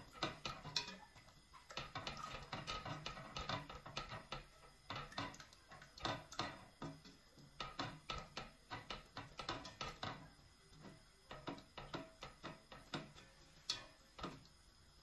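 Plastic slotted spatula scraping and knocking against a stainless steel pot while stirring eggs, in quick irregular clicks that thin out toward the end.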